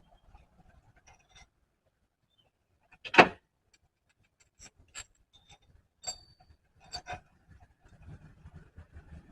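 Hand tools and metal engine parts being handled: one loud clank about three seconds in, then a few lighter metallic clicks and taps.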